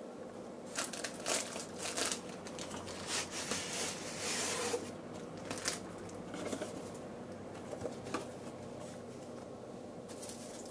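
Packaging being handled as a new boxed clock radio is slid out of its carton: plastic wrap crinkling, with cardboard and foam end caps rubbing and scraping. An irregular run of rustles, busiest in the first half, with a longer crinkle around four seconds in, then fainter handling.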